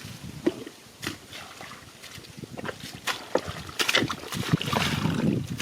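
Shallow water splashing and sloshing in irregular bursts, busier and louder in the second half.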